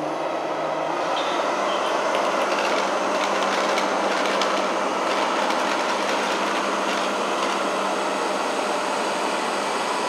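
Jisiwei I3 robot vacuum cleaner running on carpet: a steady whir of its suction fan and brushes, with faint scattered clicks as Cheerios are picked up.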